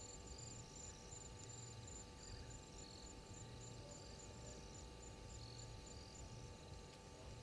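Faint night chorus of crickets and other insects: one high chirp pulsing steadily several times a second, with other insects trilling in short, overlapping bouts.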